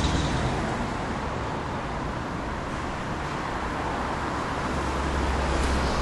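Steady outdoor street noise, a low rumble with a hiss, typical of road traffic; it eases off a little midway and grows louder again in the second half.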